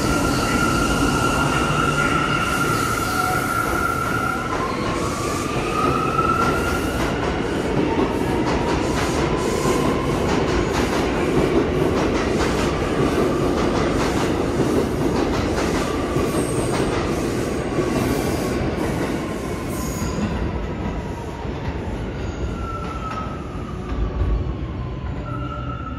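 New York City Subway train running on the express track through the station, its wheels clicking over rail joints with a steady rumble. High whining and squealing tones glide up and down over the noise, and the sound eases off over the last few seconds.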